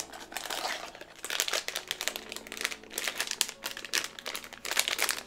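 Crinkling and rustling of a blind-box figure's plastic wrapper as it is handled and unwrapped, in quick irregular crackles.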